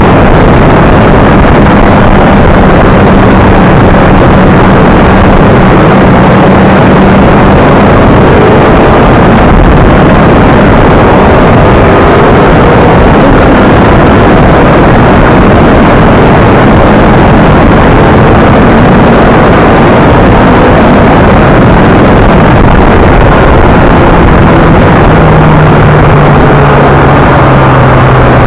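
Honda CBR600RR's inline-four engine running at road speed, mixed with heavy wind rush on the bike-mounted camera's microphone, loud and steady throughout. The engine note falls near the end as the bike slows.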